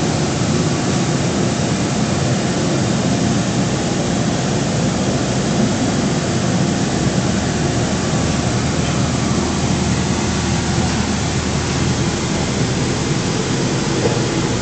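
Loud, steady roar of jet aircraft engines running on an airport apron, with a faint steady whine over it.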